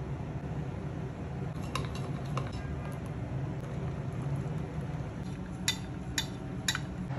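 Metal teaspoon clinking against a small glass bowl while stirring chocolate milk: a few light taps about two seconds in, then three clear clinks about half a second apart near the end, over a steady low hum.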